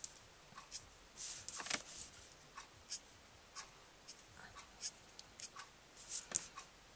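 Copic alcohol marker nib flicked across Copic X-Press It cardstock in short, quick strokes: faint, unevenly spaced scratchy swishes, about three a second, laying in wispy fur.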